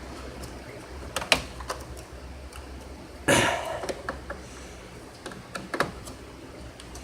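Hands working on an indoor HVAC unit: a few sharp clicks and knocks of metal and plastic parts, with a louder scraping rustle a little over three seconds in.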